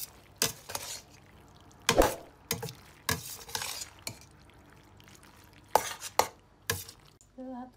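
A metal spoon stirring cooked shell pasta in a metal pot, with irregular scrapes and clinks of the spoon against the pot. The loudest clink comes about two seconds in.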